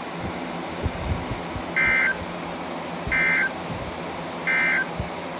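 Three short bursts of Emergency Alert System (SAME) digital data tones, a warbling two-tone screech about 1.3 seconds apart: the end-of-message code closing the alert. They play over a steady radio hiss.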